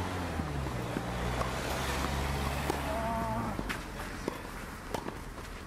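A motor engine running with a low, steady hum that dips slightly in pitch near the start and stops about two-thirds of the way through, with a few scattered sharp taps.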